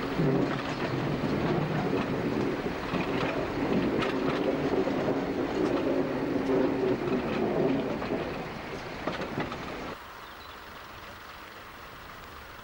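First-generation British Rail diesel multiple unit heard from an open carriage window as it runs slowly over jointed track and pointwork: the steady drone of its underfloor diesel engines, with wheels clicking now and then over rail joints. About ten seconds in, it cuts suddenly to a much quieter, steady background.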